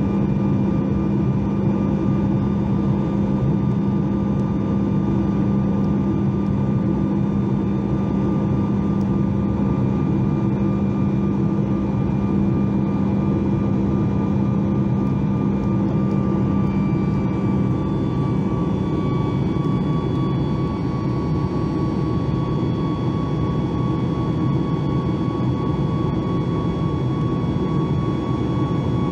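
Cabin noise of a Boeing 737 MAX 8 in flight, heard from a window seat beside its CFM LEAP-1B turbofan: a steady rush of air with an engine hum and whine. A low hum fades out about two-thirds of the way in, and a higher whine drifts slightly lower in pitch.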